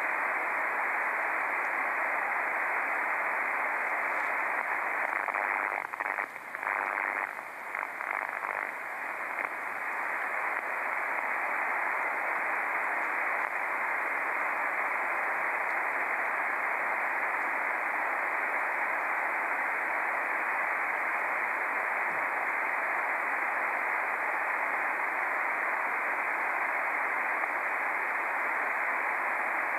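Shortwave (HF) ham radio receiver putting out dense, strong pulse noise (QRN) through its narrow voice-filter passband, with a few brief dips in level. The operator says it is present on every HF band and is unsure whether it is atmospheric noise.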